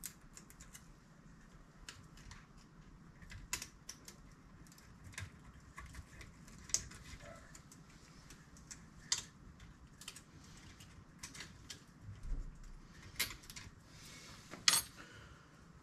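Quiet, irregular light clicks and taps of small metal shims being picked through and stacked while shimming a classic Mini's front swivel hub.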